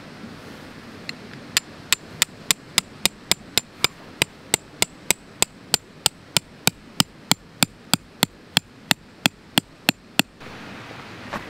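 Hammer driving a steel tent peg into firm ground: a steady run of sharp metal-on-metal strikes, about three a second, starting about a second in and stopping shortly before the end.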